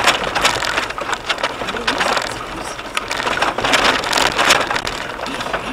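Car driving slowly over a rough unpaved road, heard from a dashcam inside the car: a steady rushing of tyres on gravel and dirt with many irregular clatters and knocks from the body rattling over the bumps.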